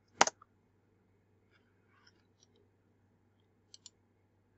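A sharp click just after the start. Then a few faint small ticks, and near the end a quick double click of a computer mouse, over low room hum.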